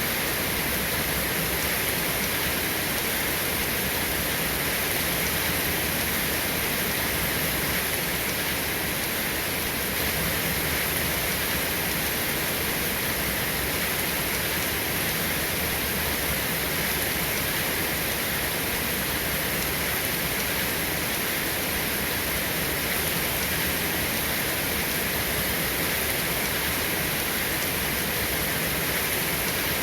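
Rain falling steadily, an even, dense hiss with no breaks or claps of thunder.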